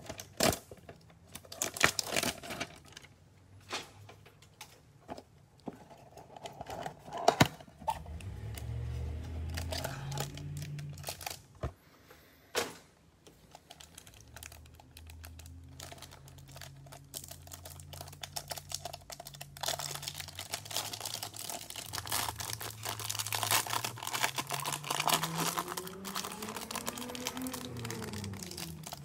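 Cardboard trading-card hanger box being opened by hand, with scattered sharp clicks and tears. Later comes a denser crinkling of the clear plastic wrapper as the stack of cards is pulled out, loudest near the end.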